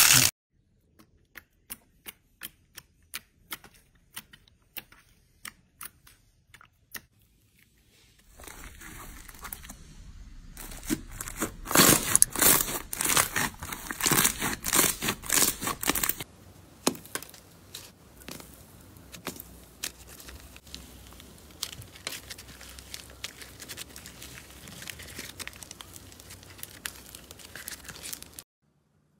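Slime squeezed and kneaded by hand, with sticky crackling and popping clicks as air pockets burst. The clicks come singly at first, then turn dense and loud for several seconds, then lighter again. The sound cuts off abruptly near the end.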